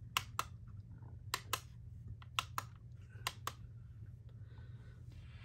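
Four double clicks, about a second apart, from the push buttons on a galaxy star projector, each pair a button pressed and released as its modes are switched.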